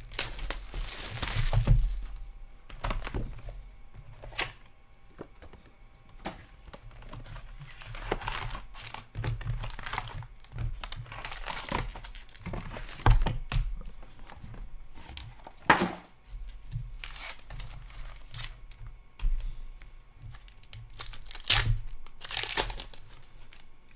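Hockey card packs being handled and torn open by hand: plastic wrappers crinkling and tearing in irregular bursts, with a few sharp knocks as the box and packs are handled.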